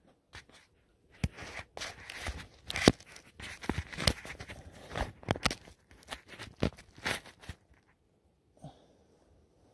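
Loose slate shards crunching, clinking and scraping with close handling knocks as the camera is set down among them: a run of sharp clicks and scrapes that stops near the end.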